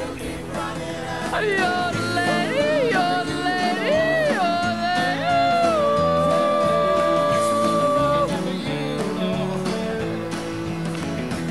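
Background song: a singer's voice over instrumental accompaniment. The voice holds one long note in the middle.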